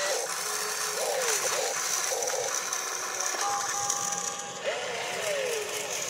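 Small electric motors and gearboxes of an RC excavator whining and grinding as it works its boom, arm and bucket, the pitch sliding up and down with each move, one steady whine held for about a second in the middle.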